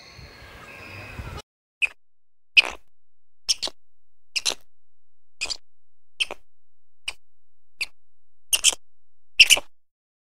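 An animal giving a series of short, sharp, high-pitched chirps, about one a second, some ten in all.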